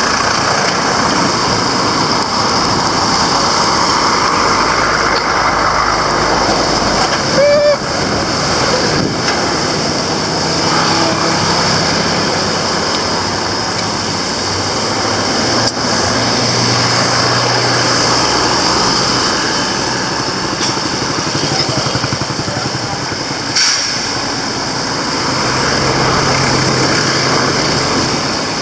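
Busy road traffic: a constant mix of vehicle engines and tyres passing close by, with a short pitched sound about seven and a half seconds in.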